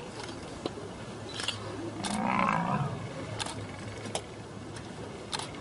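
A lion calls once, briefly, about two seconds in, a rough call just under a second long. Several camera shutter clicks sound around it.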